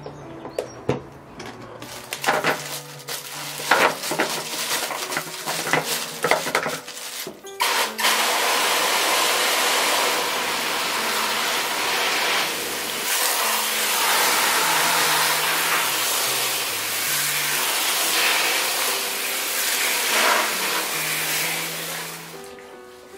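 A plastic storage container's snap-latch lid being handled, a series of clicks and knocks. Then from about eight seconds in, a steady rush of water sprayed into a plastic basin full of cucumbers.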